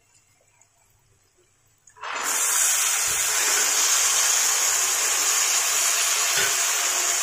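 Soaked brown chickpeas tipped into hot oil and fried masala in a kadhai on high flame, setting off a loud, steady sizzle that starts suddenly about two seconds in. A couple of faint low knocks come through the sizzle.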